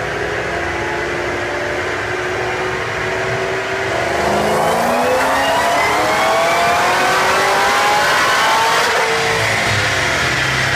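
Ford Shelby GT500's supercharged V8 on a chassis dyno: it runs at low revs, then from about four seconds in makes a full-throttle pull, climbing steadily in pitch and getting louder for about five seconds before the revs drop near the end.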